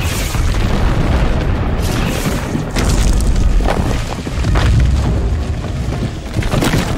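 Helicopter rocket salvo exploding against sandstone rock spires: heavy booms and crashing, tumbling rock over a continuous deep rumble, with several sharp impacts standing out. Film score underneath.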